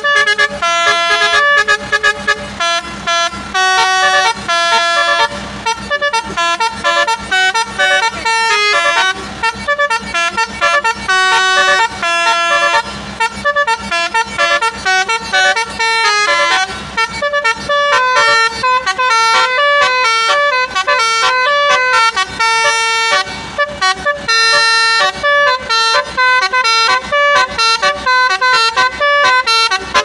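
Basuri telolet musical horn playing a continuous melody, a long run of loud horn notes that change pitch every fraction of a second.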